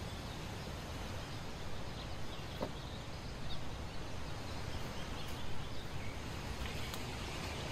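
Outdoor woodland morning ambience: a steady rushing background with a few faint bird chirps, and one soft knock a little before the middle.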